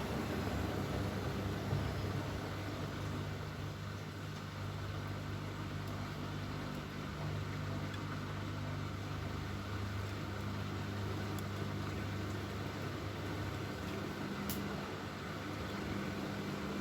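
Bosch Maxx WFL 248Y front-loading washing machine running, a steady low mechanical hum with a faint click now and then.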